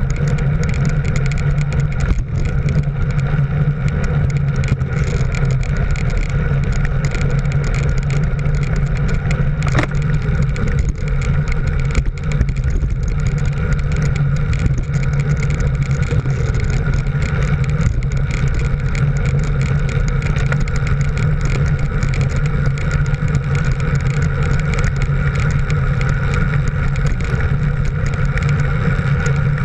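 Steady drone of a motor vehicle's engine running at a constant road speed, with wind noise over the microphone mounted on it.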